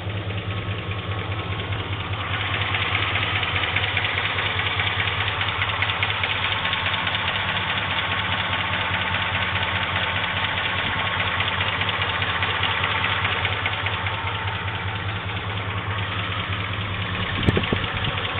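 2004 Chevy Silverado engine idling steadily with a fast, light ticking over the drone. The ticking gets louder about two seconds in and eases off near the end. The owner is unsure whether it is a bad lifter or a rod knock.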